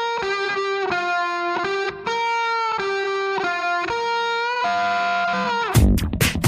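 Background music: a distorted electric guitar plays a slow melody of held notes, then near the end a loud beat with heavy bass and drums comes in.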